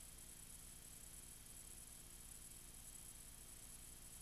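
Near silence: a faint, steady hiss with a low hum, the blank soundtrack of a silent newsreel.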